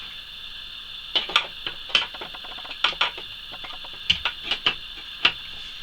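Irregular sharp clicks and taps of a plastic printer panel being handled and fitted onto a 3D printer frame, about a dozen knocks spread over a few seconds.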